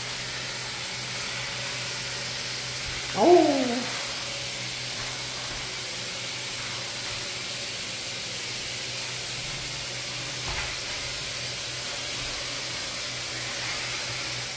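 Aerosol insecticide spray hissing in a long, steady stream, sprayed at mosquitoes on the walls. Under it runs a low steady hum, and about three seconds in a brief squeak-like sound rises then falls in pitch.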